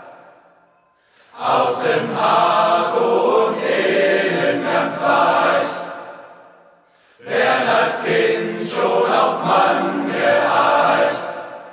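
Male choir singing in long phrases. The end of one phrase dies away with hall reverberation at the start, a new phrase comes in about a second in, and another follows a short pause a little past halfway.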